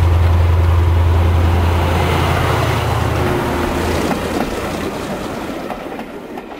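Model trains running on a layout. A steady low drone drops away about three seconds in, and the rolling rumble of coaches passing close fades toward the end.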